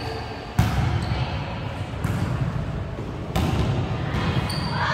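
Volleyball struck hard twice, about three seconds apart, each a sharp smack echoing in an indoor hall, over a low background rumble. Voices rise near the end.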